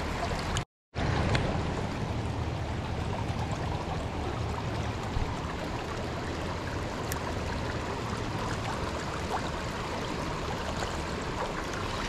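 Shallow creek water running steadily over rocks in a riffle. The sound cuts out completely for a moment just under a second in.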